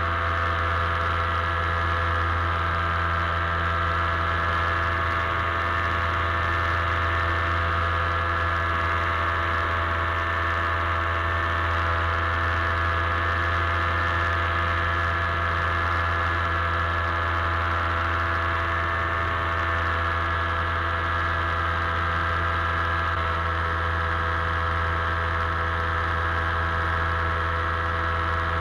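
Paramotor engine and propeller running steadily at constant cruise throttle, a continuous drone with no change in pitch.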